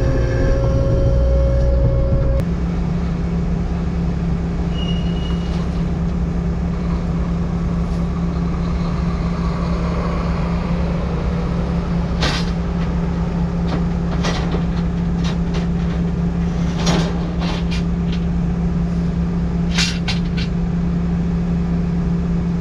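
Diesel engine of a piece of heavy equipment running steadily. Its note shifts about two seconds in and then holds, with several sharp knocks in the second half, likely rock against the machine.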